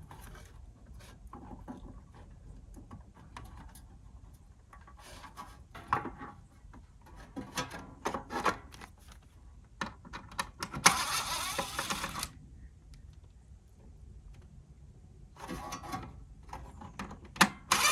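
Small clicks and knocks of screws and casing parts being handled while an all-in-one diesel heater is taken apart. A louder noisy stretch lasts a little over a second, starting about eleven seconds in.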